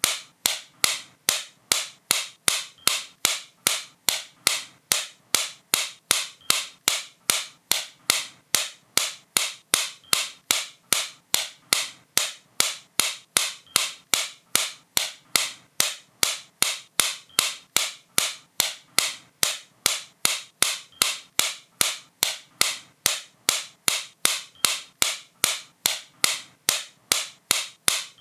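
Sharp, crisp clicks repeating at a perfectly even pace, about two and a half a second, each one short and bright.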